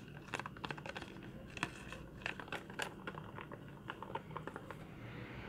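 Plastic being handled close to the microphone: irregular crinkling and light clicks.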